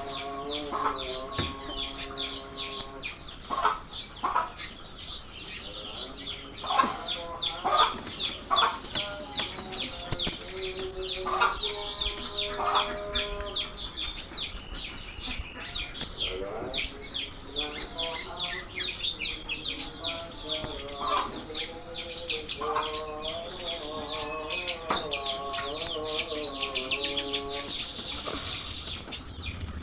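Konin songbird singing a continuous, rapid chattering song of quick high chirps and sweeps, full of varied phrases. Lower, wavering clucking calls, like a hen's, come and go beneath it.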